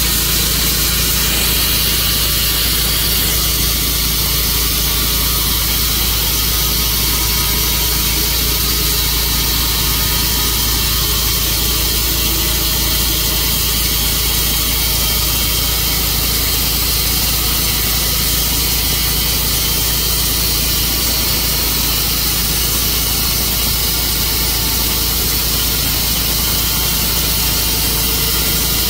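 Tru-Cut portable bandsaw sawmill running steadily: a constant engine drone under an even, high hiss.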